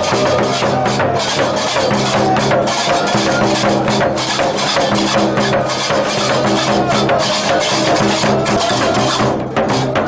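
Moroccan folk percussion: large double-headed drums beaten with sticks, with several pairs of qraqeb iron castanets clacking in a fast, steady rhythm.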